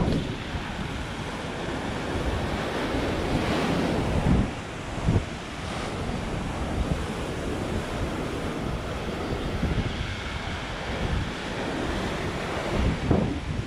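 Ocean surf breaking against a rocky shoreline and washing back in foam, with wind buffeting the microphone in gusts.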